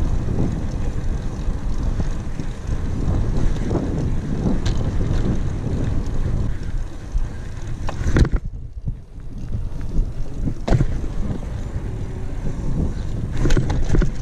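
Wind buffeting the microphone and tyres rumbling on asphalt as a mountain bike is ridden along a street, with a few sharp knocks from the bike. The rumble thins out briefly about eight seconds in.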